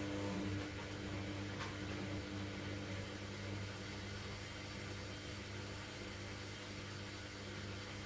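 Logik front-loading washing machine's drum motor running at a steady speed in its load-distributing stage before the spin, a steady hum.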